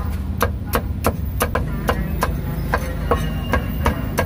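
A steel cleaver chopping through roast pork onto a thick wooden chopping block: a steady run of sharp chops, about three a second, over a low steady background rumble.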